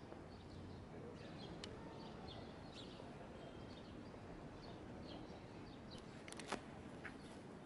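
Quiet outdoor background noise with faint small bird chirps, and a cluster of sharp clicks about six seconds in.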